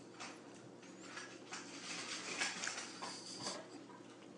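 Faint, scattered taps of a cat's paws on a granite countertop as it hops sideways with its back arched, heard against quiet room tone.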